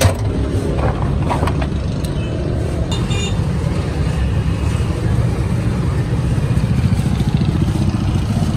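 Steady low rumble of street traffic, with a few light clicks and knocks in the first second and a half.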